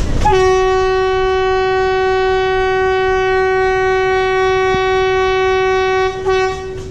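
Metre-gauge Alco diesel locomotive's horn sounding one long, steady single-note blast of about six seconds, with a short break and a brief final toot near the end, over the rumble of the moving train.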